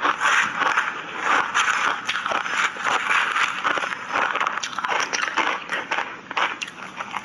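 Close-up crunching of frozen shaved ice being chewed, a dense run of crackles that goes on without a break.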